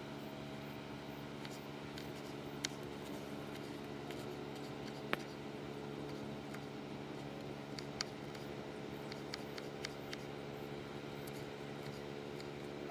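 Knife slicing a yellow bell pepper on a wooden cutting board: sparse, irregular clicks of the blade striking the board, the sharpest about five seconds in, over a steady low hum.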